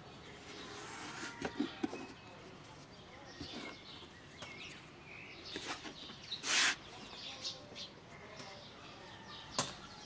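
Floured hands pressing and working small pieces of dough on a wooden board: soft taps, pats and brushing through flour, with one louder short brushing rush about two-thirds of the way in. Birds chirp in the background.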